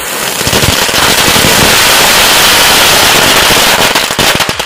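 Lit Diwali ground spinner (zameen chakkar) hissing, with a ring of chitput crackers crackling around it in a dense, continuous rattle of rapid pops. The sound builds over the first second and thins into separate pops near the end.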